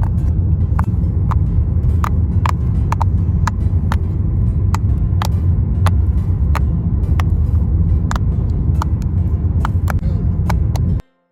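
Steady low road rumble inside a moving car, with sharp clicks about two a second running over it. It cuts off abruptly near the end.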